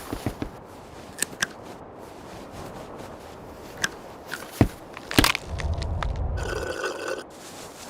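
Dubbed-in sound effects: a string of sharp clicks and knocks, two loud knocks about four and five seconds in, then a low rumble lasting about two seconds with a buzzy tone over it near the end.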